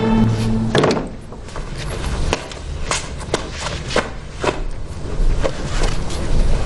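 A held music chord ends about a second in. It is followed by scattered sharp clicks and light knocks at irregular intervals over a low rumble: drama sound effects of someone moving about in a dark room.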